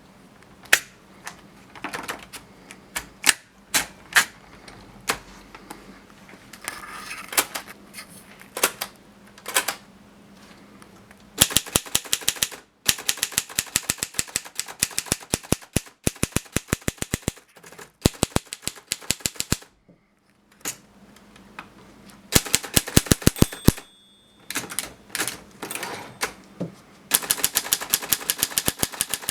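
A 1950s Princess manual typewriter being typed on. The key strikes are scattered at first, then come in runs of rapid, even clicks with short pauses between them. The margin bell rings briefly about two-thirds of the way through.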